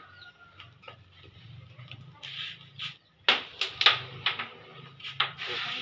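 A cue strikes a ball on a wooden pool table about three seconds in, followed by several sharp clacks over the next two seconds as the balls hit each other and the cushions.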